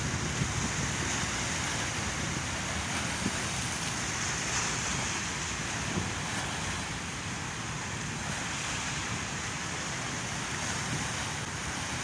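Sea surf washing over shoreline rocks, a steady rushing noise, with some wind on the microphone.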